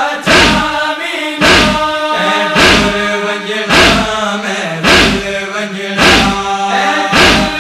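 Men's voices chanting a nauha (Shia lament) in unison, with a heavy chest-beating (matam) thump about once a second keeping the beat.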